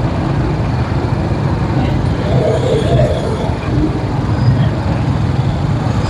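Congested street traffic: engines of cars, motorbikes and auto-rickshaws running in a slow jam, a steady low rumble, with voices of people in the street.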